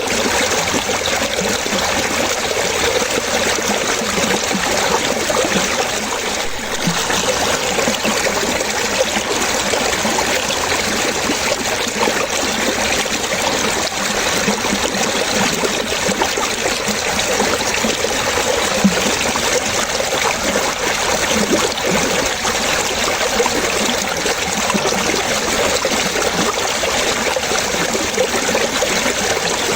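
Running water in a small stream or brook, steady splashing and trickling.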